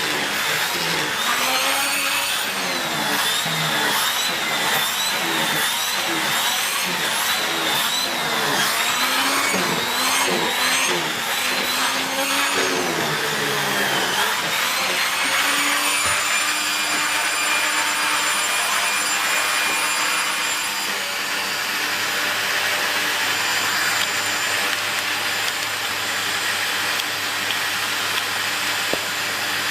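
SEBO Felix Rosso upright vacuum cleaner running with a mini turbo brush on its hose. For about the first half its pitch rises and falls about once a second; after that it runs at a steady pitch.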